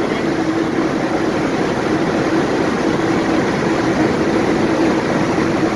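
Steady running noise of a passenger train heard from inside the coach as it rolls slowly through a station, with a constant low hum over an even rumble.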